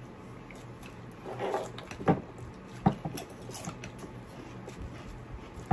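Eating sounds at the table: soft chewing with a few sharp clicks, about two seconds in, about three seconds in, and near the end.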